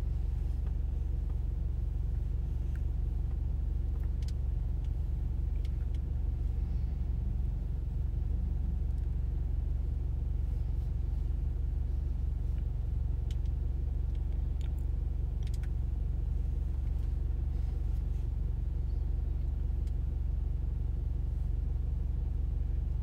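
Steady low machine hum, with a few faint clicks now and then.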